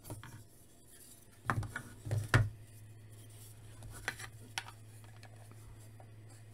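Hard plastic diorama kit pieces clacking and clicking against each other and the tabletop as they are handled and fitted. A few loud clacks come about one and a half to two and a half seconds in, then lighter clicks, over a low steady hum.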